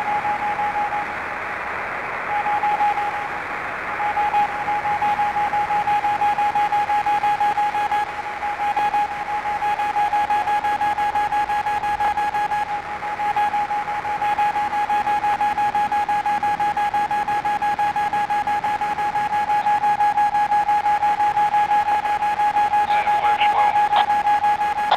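A 47 GHz microwave beacon heard through the transverter's receiver as one steady tone in a bed of receiver hiss. The tone breaks briefly a few times in the first four seconds. It is a weak signal, about S2 on the meter.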